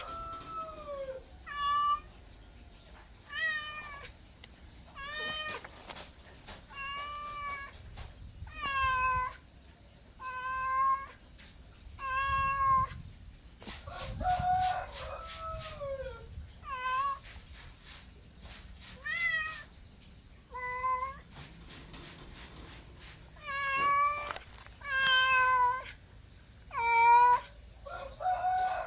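Domestic cat meowing over and over, about one meow every second or two, each call rising and then falling in pitch.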